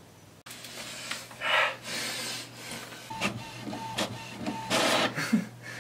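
HP Envy 5540 inkjet printer printing a photo page, starting about half a second in: a steady motor hum under repeated swells of whirring as the print carriage and paper feed move, with several sharp clicks and a brief steady whine partway through.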